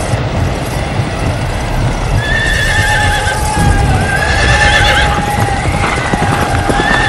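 Horses neighing several times over a steady low rumble of galloping hooves. The first neigh comes about two seconds in.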